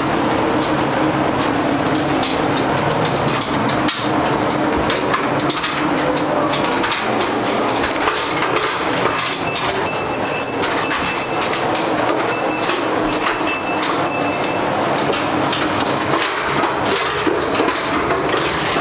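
Footsteps and metal knocks on a steel ladder through a deck hatch, over a steady din inside a warship. A high-pitched tone beeps on and off in two spells in the middle.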